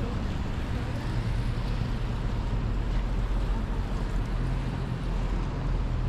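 Wind buffeting the microphone: a steady low rumble under an even hiss of open-air noise.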